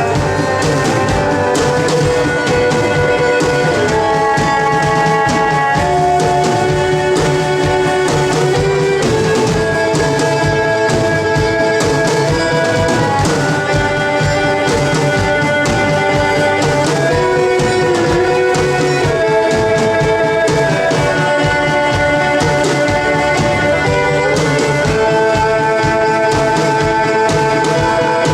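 Live rock band playing: a drum kit keeping a busy beat under guitars and held chords that move to new notes every second or two.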